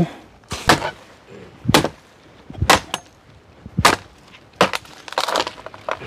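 Dry wooden sticks being snapped by hand for firewood: a run of sharp cracks, about one a second.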